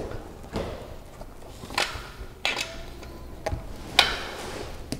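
Rubber inner tube being pulled out of a bicycle tire and the wheel being handled: rubbery rustling with several light knocks and taps, the sharpest about four seconds in.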